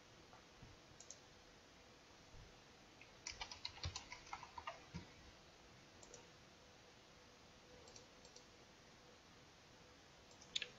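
Faint typing on a computer keyboard: a quick run of keystrokes about three to five seconds in, with a few single mouse clicks scattered before and after.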